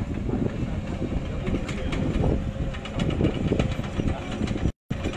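Outdoor rumble with scattered knocks and clatter, cutting out completely for a moment near the end.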